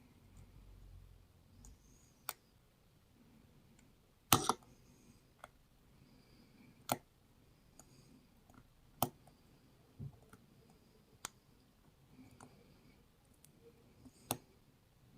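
Metal clicks and taps of a lock pick and tension wrench working the pins of an Ace five-pin pin-tumbler padlock during single pin picking. The sharp clicks come irregularly, with the loudest short cluster about four seconds in.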